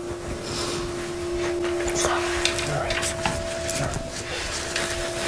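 A woman crying, with sniffs and unsteady breaths, over a soft background music drone of two held notes.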